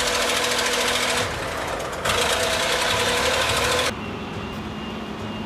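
Heavy machinery running loud, a dense engine and mechanical din with steady tones. It cuts off abruptly just past one second, comes back about two seconds in, then gives way near the end to a quieter steady machine hum.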